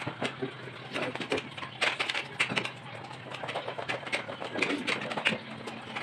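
Irregular clinks and scrapes of spoons and hands on plates and aluminium pots as a group eats at a table, over a steady low hum.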